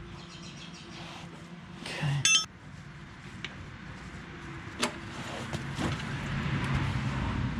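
Engine oil pouring from the drain hole of a John Deere 755 compact tractor into a drain pan, the splashing rising in the second half. A single ringing metallic clink comes about two seconds in, and a sharp click near the middle.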